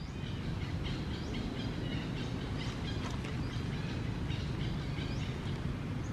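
Outdoor ambience: many small birds chirping in quick, short calls over a steady low hum.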